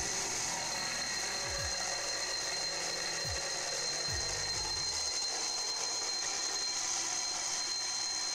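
Milling machine with an end mill facing a cast aluminum cross down to thickness: steady motor and cutting noise with a thin, high, steady whine.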